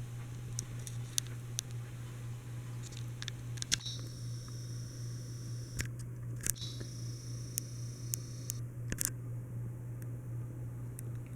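Encon Casanova ceiling fan running with a steady low hum, and light clicks and ticks scattered over it.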